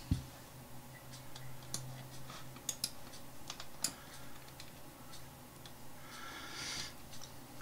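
Faint, scattered clicks of a computer mouse being worked, over a faint low hum.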